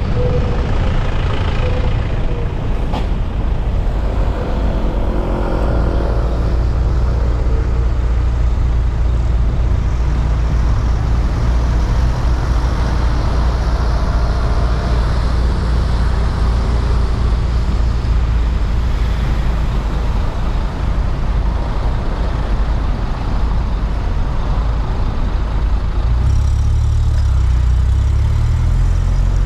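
Steady low rumble of a car's engine and road noise as it slows and sits stopped at an intersection, with traffic passing. Near the end the rumble gets louder and more uneven.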